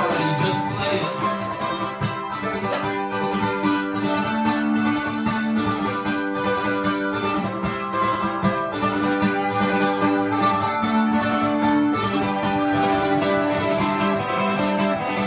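Live guitar music: an acoustic guitar and a second guitar play a steady instrumental passage of a song, the notes plucked and strummed without a break.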